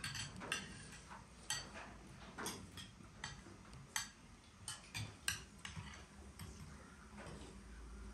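Spoons and forks clinking and scraping against plates and bowls while people eat, as a series of light, irregular clicks.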